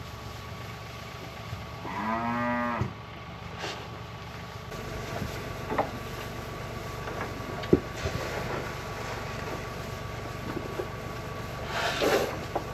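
A cow moos once, a short call just under a second long about two seconds in, over a steady low hum with a few scattered knocks.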